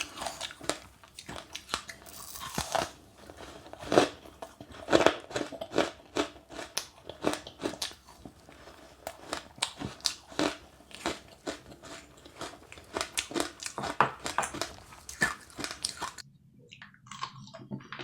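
A person chewing passion fruit with sesame seeds: a quick, uneven run of sharp, crisp crunches as the seeds crack between the teeth.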